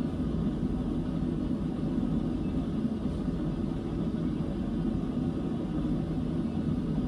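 A steady, even low rumble of machinery or air handling, with a faint hiss above it and no change in level.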